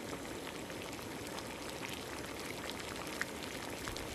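Rice cooking in a pot of water on the stove: a steady bubbling hiss with faint scattered pops.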